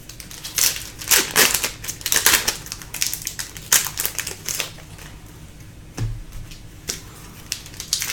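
Stack of Upper Deck hockey trading cards being handled and flipped through by hand: quick papery swishes and rustles of card stock, with a soft thump about six seconds in.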